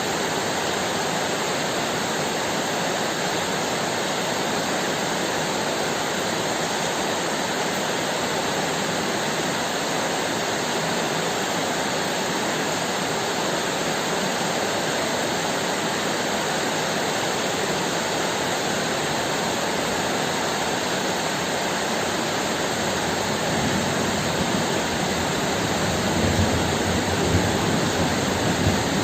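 Steady hard rain falling, an even rushing hiss. Near the end a low rumble of thunder starts to build under it.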